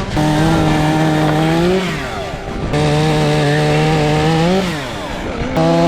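Chainsaw running at high revs, its note dropping away and climbing back up twice as the throttle is let off and squeezed again.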